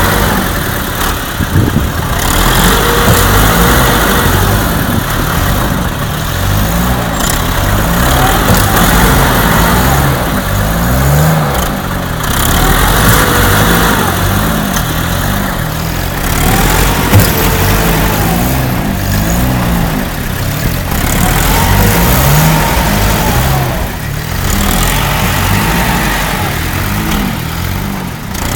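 Vehicle engines running and revving over and over, the pitch rising and falling every couple of seconds over a steady noisy bed.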